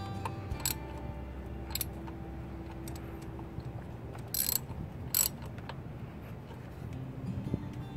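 A socket wrench and extension bar clicking and clinking against metal as thermostat housing bolts are worked by hand in a car engine bay, a few sharp clicks over a steady low hum.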